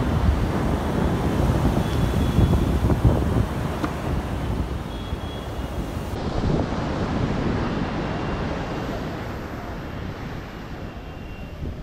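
Sea wind buffeting the microphone, with surf washing on the shore behind it. The rumble eases off in the second half.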